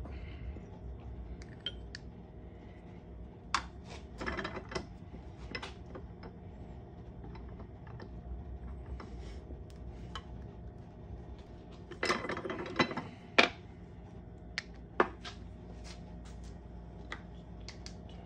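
Hand-lever arbor press worked to press a copper coin ring through steel die tooling: clicks of the rack and lever and clinks of metal parts on the bench. The loudest knocks come in a cluster about twelve to thirteen seconds in.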